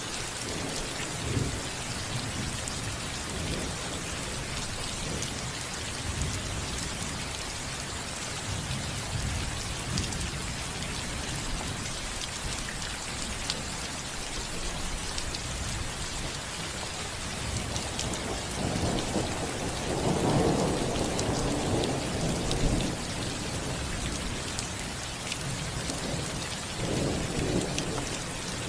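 Steady rain falling on a house roof, with thunder rumbling: a long roll swelling about two-thirds of the way through and a shorter one near the end.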